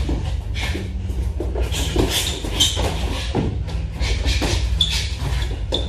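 Sparring sounds: boxing gloves landing in quick, irregular thuds, and shoes shuffling and squeaking briefly on the gym floor, over a low steady hum.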